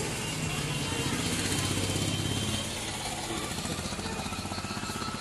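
Motorcycle engine running as it passes on the road, loudest over the first two and a half seconds and then fading away. A fast, even, high-pitched pulsing runs underneath in the second half.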